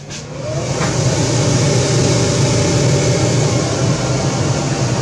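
Dual-fan blower switched on: its motor spins up with a rising whine over about the first second, then runs steadily with a loud rush of air as it exhausts the room out the window.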